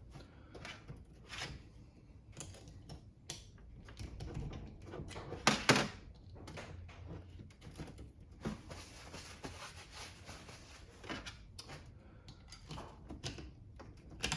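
Hand tools clicking, scraping and knocking against the steel carrier bearing cage and rollers of a differential while a roller is worked free, with two sharper knocks about five and a half seconds in.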